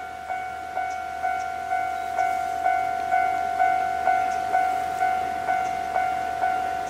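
Railway level crossing warning bell ringing in a steady, even rhythm of just over two dings a second, each ding ringing on into the next, signalling an approaching train.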